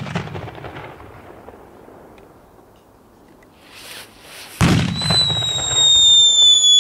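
Aerial fireworks: a burst dies away over the first second, then after a quiet stretch a shell is fired with a sharp bang and climbs with a loud whistle that falls slowly in pitch.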